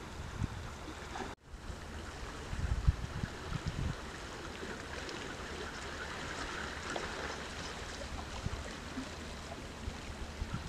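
Wind buffeting the microphone in low gusts over the steady wash of choppy sea water, with a brief cut-out about one and a half seconds in.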